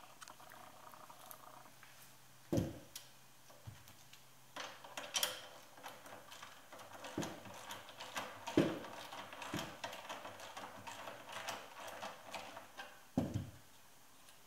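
Socket wrench and metal parts clicking and knocking as the 13 mm bolts holding a Lotus Elise's handbrake are worked loose, with a run of small irregular clicks and five thumps, the loudest about two and a half seconds in and near the end.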